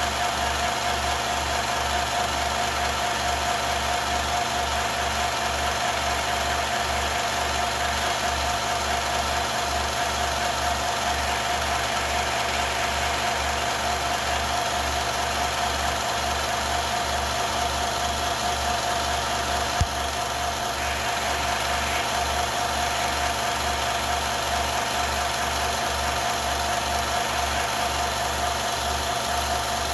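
Film projector running steadily, a mechanical whir with a constant hum and a fast low pulsing from the film drive. A single sharp click comes about twenty seconds in.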